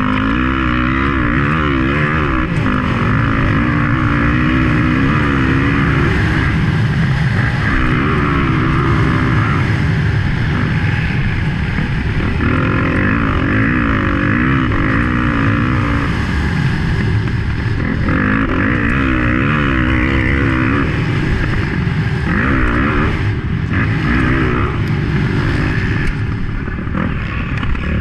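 Motocross dirt bike engine heard from on board, revving hard under racing load, its pitch climbing and falling again and again as the rider throttles up, shifts and backs off through the corners.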